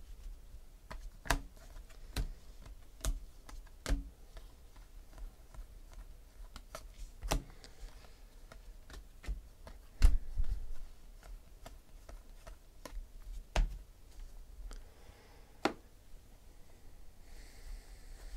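Cardboard football trading cards being flicked through by hand one at a time, each card slid off the stack with a sharp click or snap at irregular intervals, the loudest about ten seconds in. Near the end the stack is tapped and squared.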